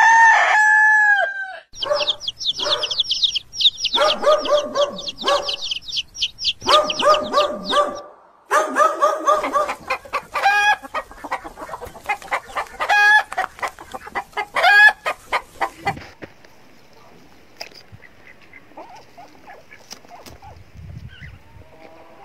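A rooster crows, then chickens cluck in repeated calls while a small bird chirps rapidly and high above them; the calls stop about sixteen seconds in, leaving only faint background.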